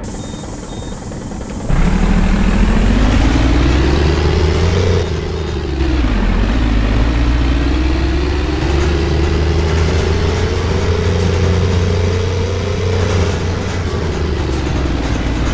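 Bus diesel engine with a truck-like sound, quiet at first, then opening up under throttle about two seconds in as the bus pulls away. The engine note climbs, drops at a gear change about five seconds in, climbs again, and winds down near the end.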